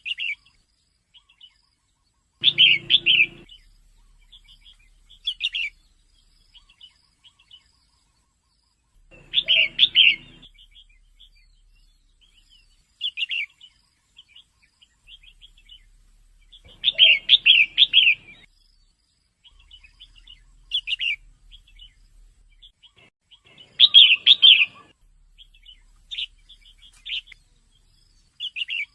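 Female red-whiskered bulbul calling: loud bursts of quick chirping notes every three to four seconds, with softer scattered single notes in between.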